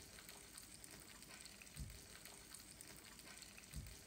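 Minced garlic faintly sizzling in melted butter in a frying pan as it is stirred with a wooden spoon, with two soft low bumps about two seconds apart.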